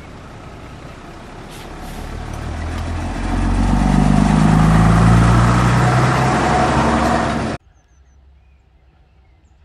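Diesel railbus running past close by, its engine and wheel noise growing louder as it draws alongside. The sound cuts off suddenly near the end, leaving only faint outdoor quiet.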